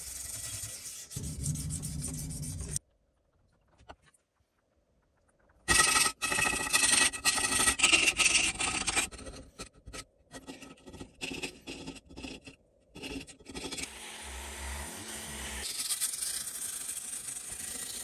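Hand sanding of a Record No. 7 plane's cast-iron body with fine 1,000-grit abrasive paper: scratchy back-and-forth rubbing strokes. The sound cuts to silence for about three seconds, then comes back louder and faster before settling into steadier rubbing.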